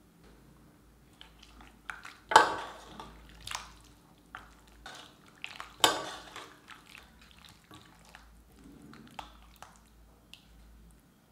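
A metal cooking spoon knocking and scraping against a wok or dish as food is stirred and moved, a string of clinks with two louder knocks about two and a half and six seconds in.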